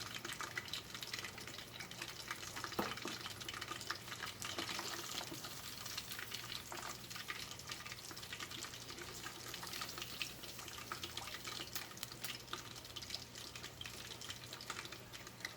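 Pre-boiled bratwursts deep frying in hot oil: steady sizzling and bubbling with a scatter of small pops, over a faint steady hum.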